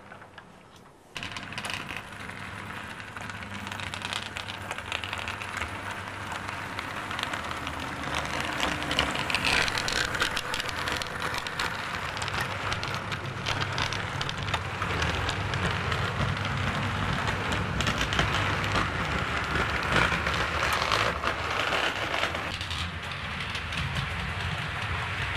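Model train running on the layout, heard from on board: a continuous crackly rattle of small wheels on the rails with a low motor hum, starting up abruptly about a second in.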